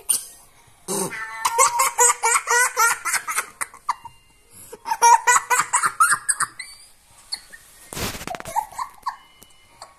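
A young girl laughing in quick, repeated high-pitched bursts, in two long runs starting about one second and about five seconds in. A short burst of noise follows about eight seconds in.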